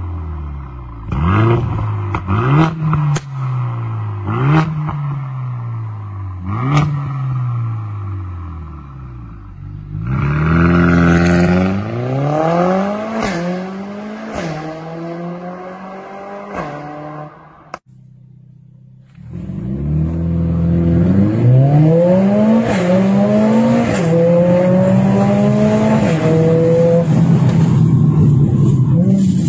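Mercedes-AMG CLA45 S turbocharged 2.0-litre four-cylinder through a catless downpipe and valvetronic cat-back exhaust, blipped about six times with sharp pops and crackles as the revs fall. It then accelerates hard through the gears: the engine pitch climbs and drops back at each upshift, twice over in separate runs.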